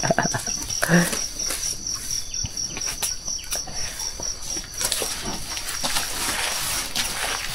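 Insects chirping in a steady, fast, high-pitched pulse, with a short low sound about a second in and scattered knocks and shuffling.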